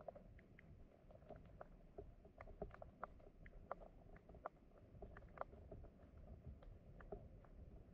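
Quiet underwater stream ambience: a steady low rumble of flowing water with scattered faint clicks and ticks, several a second at irregular intervals.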